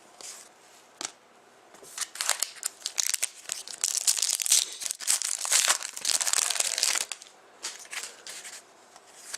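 A trading-card pack wrapper crinkling and tearing as it is opened by hand, with a dense crackling stretch in the middle and scattered small clicks and rustles of card handling either side.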